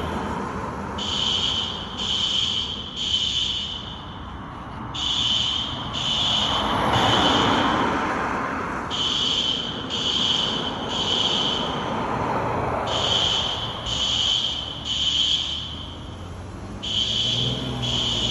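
System Sensor SpectrAlert Advance fire alarm horns sounding the three-beep temporal evacuation pattern: three short, high beeps about a second apart, then a pause, repeating about every four seconds. Really loud and noisy.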